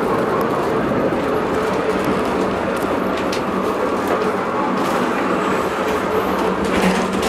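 Cable-hauled funicular car running along its rails, heard from inside the car: a steady rumble and hum with a few scattered clicks of the wheels on the track.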